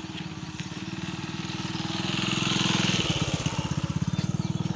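A small engine running steadily with a fast, even beat, growing louder toward the middle and easing off a little near the end, like a vehicle passing along the road.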